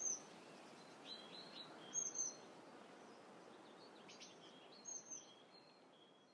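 Outdoor background ambience: small birds chirping in short high groups of calls over a steady soft hiss, starting to fade out near the end.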